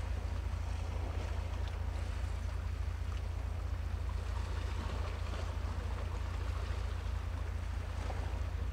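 Steady low rumble under a faint, even hiss of wind and water, with no change in level.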